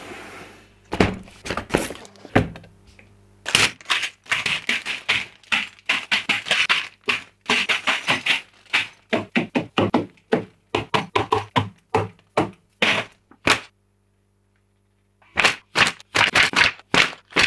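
Sealed plastic bags of building-brick parts being handled and set down on a table: an irregular run of crinkles, taps and knocks, a brief silence partway through, then the pages of a paper instruction booklet being flipped.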